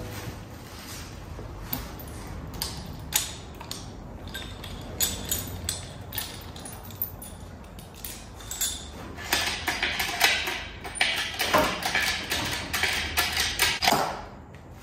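Metal clanks, creaks and knocks from an engine hoist (cherry picker) lowering a 1UZ V8 engine into a Nissan S14's engine bay. Single knocks are spread through the first part, and a busier stretch of quick clatter comes near the end.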